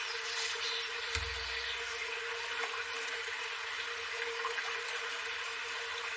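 Running water making a steady rush, with one dull thump about a second in.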